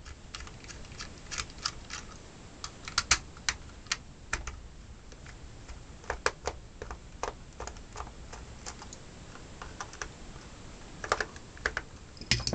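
Small jeweler's Phillips screwdriver backing screws out of a cordless screwdriver's plastic case: irregular light clicks and ticks of the tip and screw against the plastic, some in quick little clusters, with handling of the case.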